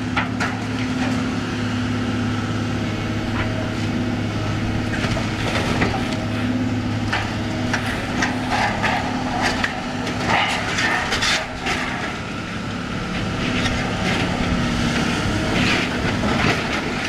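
Hydraulic excavator's diesel engine running steadily while its arm tears into a shingled roof, with repeated cracking and splintering of wood and roofing.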